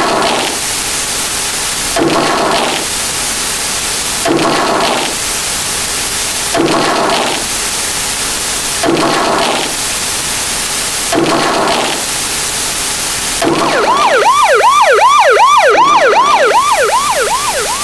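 Layered sound effects: a steady hiss with a short whoosh about every two seconds. In the last four seconds a loud electronic siren comes in, wailing up and down several times a second.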